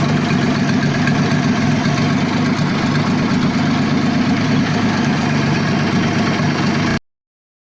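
Studebaker US6 truck's Hercules JXD inline-six engine idling steadily after its repair; the sound cuts off abruptly near the end.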